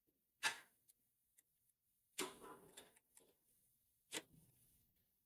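Three sharp knocks with scattered small clicks between them: an ESP32 development board shifted on a wooden table as its USB cable is plugged in.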